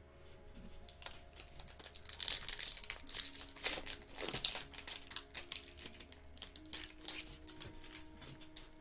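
A foil trading-card pack (2020 Bowman Chrome) being torn open and crinkled by hand. The wrapper crackles in a dense run of small crinkles, loudest from about two to four and a half seconds in, and it dies away shortly before the end.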